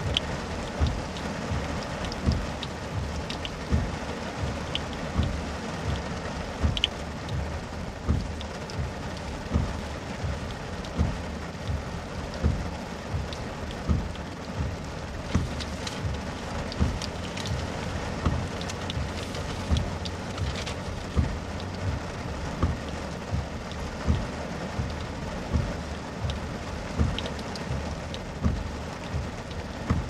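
Heavy rain drumming on a car's roof and windshield, a dense steady hiss, with the windshield wipers thumping at a regular beat about every second and a half.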